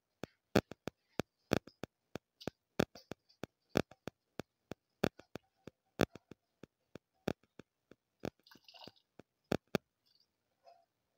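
Pan of spiced broth boiling with soaked rice in it: sharp, irregular pops of bursting bubbles, about three a second, stopping near the end.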